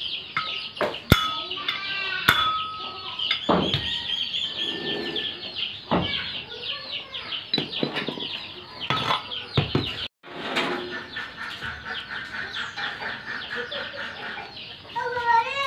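Chickens clucking and cheeping steadily. Now and then come sharp metallic clinks of tools and bearing parts being handled; the two near the start ring briefly.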